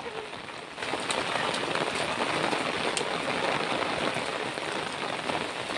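Rain falling steadily, a dense hiss of drops that gets louder just under a second in.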